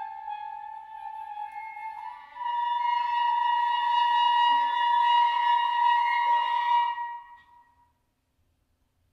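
A contemporary classical chamber quintet led by the flute, with other instruments, holding long high sustained tones. The sound steps up in pitch and swells louder about two seconds in, then dies away a little before the end.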